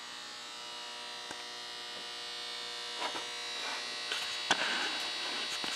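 A steady electrical buzzing hum made of several fixed tones, with a few faint knocks and rustles in the second half.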